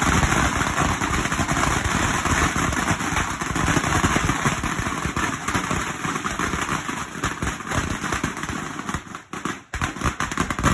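A 1,000-round firecracker string going off in a rapid, continuous crackle of bangs, thinning to scattered separate bangs near the end as it burns out.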